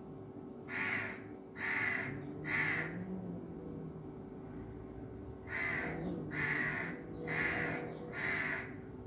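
A crow cawing: harsh caws, three in quick succession in the first few seconds, then four more after a short pause.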